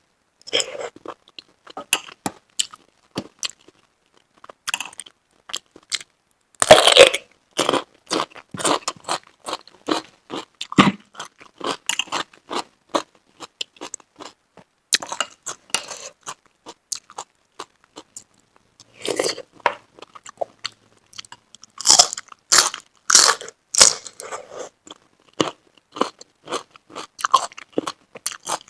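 A person chewing and biting steamed shellfish close to the microphone: a string of short crunching, clicking mouth sounds, with louder, denser bursts about seven seconds in and again near the end.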